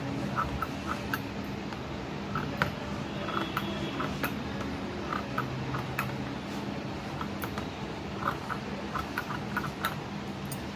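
Hair scissors snipping through the ends of an artificial braid: many quick, irregular small snips, over a low steady hum.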